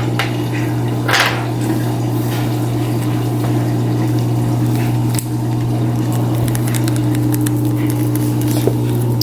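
A steady low hum, with a short hiss about a second in as slime powder is poured into a cup of water.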